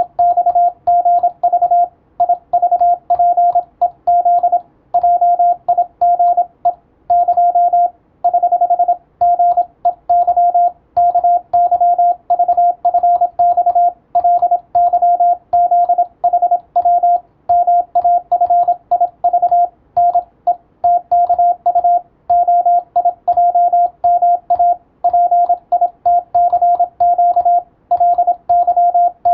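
Morse code practice signal: a single steady tone keyed rapidly on and off in dots and dashes, sending plain-language text with short pauses between words.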